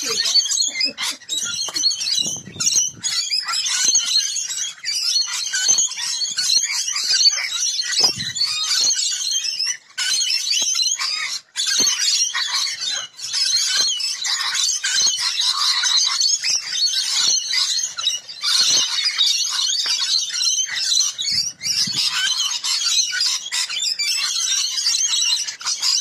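A flock of rainbow lorikeets screeching and chattering continuously while crowding a feeder, many shrill calls overlapping.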